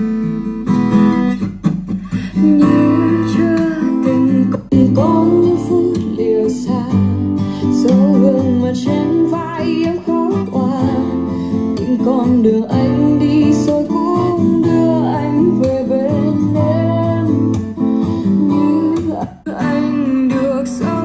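A Vietnamese pop ballad played back through a speaker during a sound test, in an instrumental passage of plucked and strummed acoustic guitar with a bass line and a gliding melody above it.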